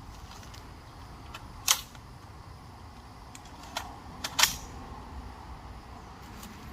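A few short, sharp mechanical clicks over a quiet steady background, the two loudest about one and a half and four and a half seconds in.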